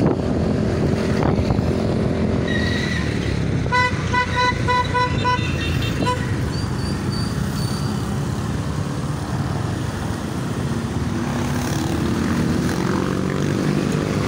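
Vehicle engines running steadily in slow traffic, with horns tooting: one horn gives a quick string of about six beeps around four seconds in, and a few shorter, higher toots follow.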